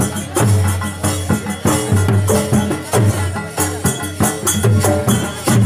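Live folk percussion accompanying a Danda Nrutya dance-drama: a drum beating a steady rhythm, about a stroke a second, under bright jingling metal percussion.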